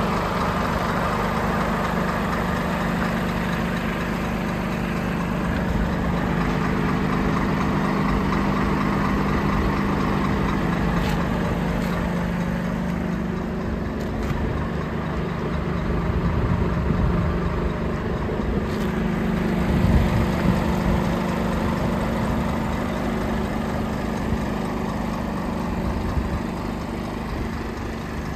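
Scania 460R tractor unit's 13-litre straight-six diesel idling steadily.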